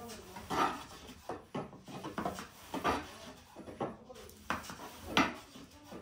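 Irregular knocks and clatter of baking implements being handled at the fire, about a dozen short sharp strikes, the loudest about five seconds in.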